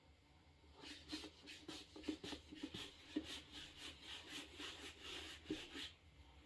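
A ball of dough rolled under the palm on a wooden board: a run of quick, faint rubbing strokes, several a second, starting about a second in and stopping shortly before the end.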